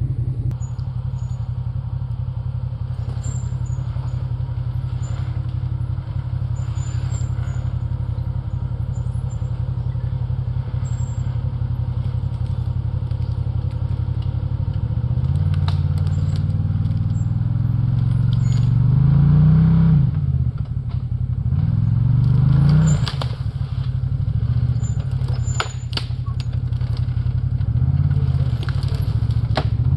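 Can-Am Maverick Sport XRC side-by-side's V-twin engine idling steadily, then, from about halfway, revving up and down again and again as the UTV crawls over a pile of fallen trees. Sharp cracks and clatter from branches breaking under the tyres come with the revs.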